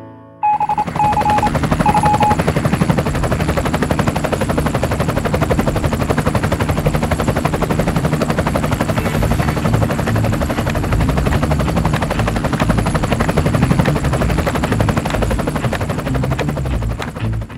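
Robinson R44 helicopter running on the ground, its rotor turning with a steady, rapid chop over the engine. A few short beeps sound near the start.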